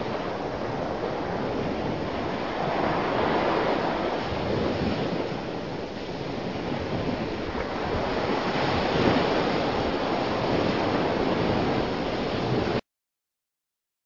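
Ocean waves surging and breaking, a continuous rush that swells and eases in loudness. It cuts off suddenly near the end.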